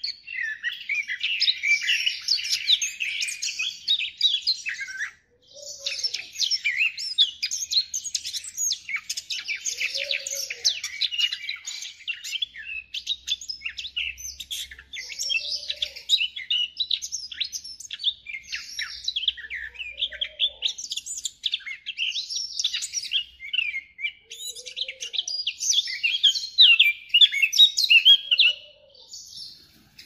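Caged songbird singing a long, varied, high-pitched song of rapid chirps, trills and whistles, with a short break about five seconds in.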